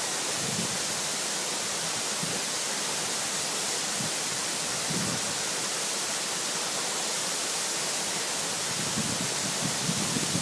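Steady rushing roar of a wide, multi-tiered waterfall, water pouring over rock ledges in many cascades.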